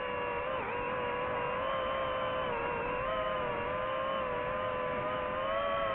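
DJI FPV drone's motors and propellers whining in flight, a steady pitched hum that wavers slightly up and down with the throttle.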